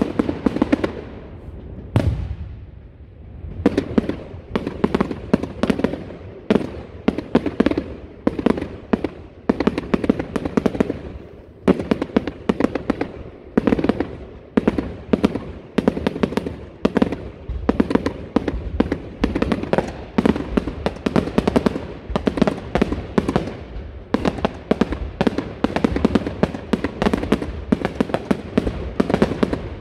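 Fireworks finale: a rapid barrage of aerial shells bursting, many bangs a second, with a short lull about two seconds in before the barrage picks up again.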